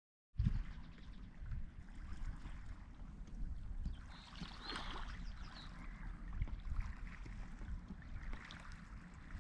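Wind rumbling on the microphone at the water's edge, with a faint wash of moving water; it cuts in abruptly a moment after the start, and a short high chirp sounds about halfway through.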